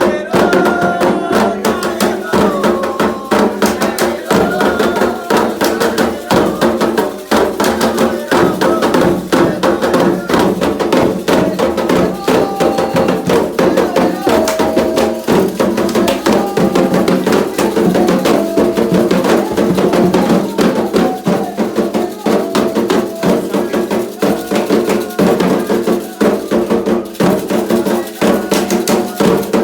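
Candomblé ritual music: atabaque hand drums playing a fast, steady rhythm with a metal bell ringing through it, while voices sing a chant over the drums.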